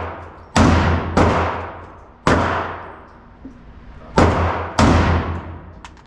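Five gunshots at a shooting range, each with a long echoing decay: two about a second apart near the start, one just after two seconds, then two more around four and five seconds in.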